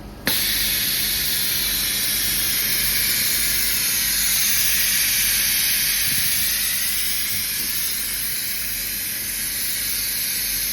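Steady hiss of air from a COF-to-glass ACF hot-bonding machine during its press cycle. It switches on suddenly just after the start and holds level.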